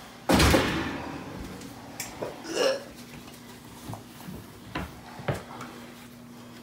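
A man gags loudly about half a second in, then makes a smaller gagging sound a couple of seconds later. Light clicks and knocks of handling are heard in between.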